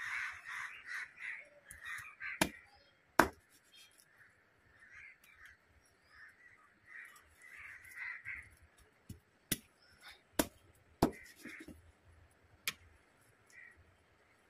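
Steel cleaver chopping through fish on newspaper over bare ground. There are two sharp chops about two to three seconds in, the second the loudest, then about five more spread through the second half. Between them, birds give bursts of repeated harsh calls.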